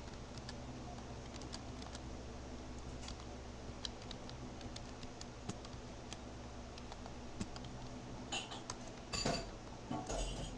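Light, scattered clicks of a computer keyboard and mouse over a steady low hum, with three louder, rougher noises in the last two and a half seconds.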